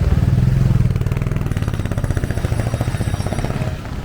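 Motorcycle engine running close by at a low, steady pulse, loudest in the first second and easing off as it moves away.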